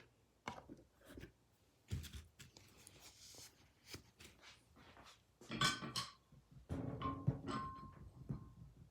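Metal vise parts being handled and knocked together, a scatter of clicks and thunks. About halfway through, two sharper metal strikes each leave a ringing tone that hangs on for a second or more.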